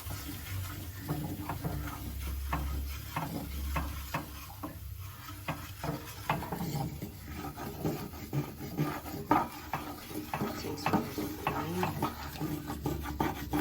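A utensil stirring flour cooked in ghee in a pan, making irregular scrapes and light taps against the pan.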